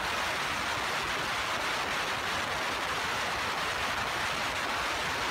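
Steady, even hiss of rushing air in a car cabin, with no engine rumble beneath it.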